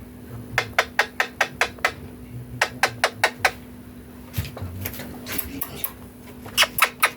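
Quick runs of sharp clicks or taps, about five a second, in several short bursts, over a faint steady low hum.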